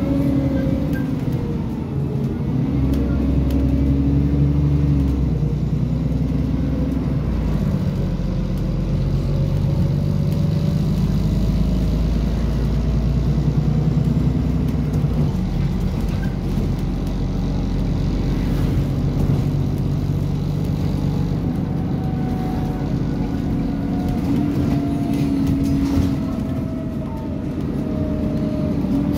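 Bus engine and drivetrain heard from inside the passenger saloon while the bus drives along, the engine note shifting up and down in steps several times, with a fainter whine rising and then falling near the end.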